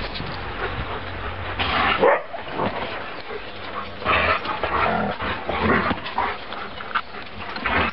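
Three-week-old puppies yelping and whimpering as they jostle under their mother to suckle, in a string of short cries with the loudest about two seconds in.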